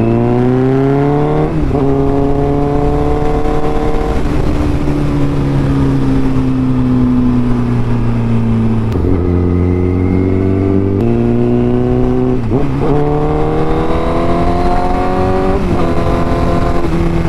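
Honda Fireblade's inline-four engine accelerating through the gears with a loud exhaust note. The pitch climbs and drops suddenly at each upshift, several times, with a steadier stretch of cruising in the middle.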